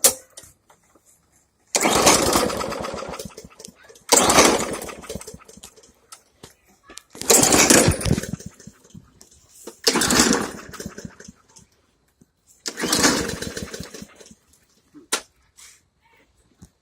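Briggs & Stratton 300E series 125 cc lawn mower engine pull-started five times, each pull giving a short burst of running that dies away without the engine catching. The owner takes the trouble for a flooded engine.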